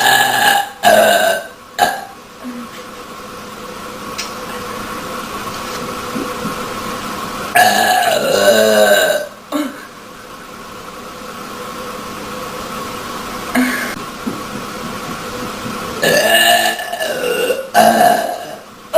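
A woman burping loudly over and over: a few short burps in the first two seconds, a long drawn-out burp about eight seconds in, a brief one around fourteen seconds, and two more long burps near the end.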